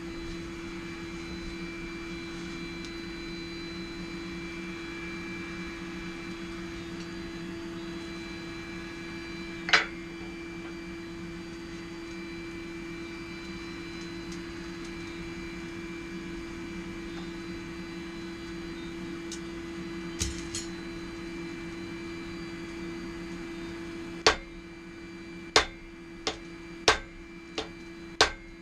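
A small lit forge hums steadily, with one sharp metallic knock about a third of the way in and a light clink later. Near the end a hammer strikes hot steel on an anvil six times in quick, uneven succession, forging an axe head.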